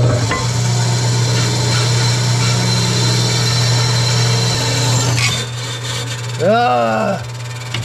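Craftsman bandsaw running, its motor humming steadily while the blade cuts through a block of wood. The cutting noise eases after about five seconds, and the saw's hum cuts off near the end.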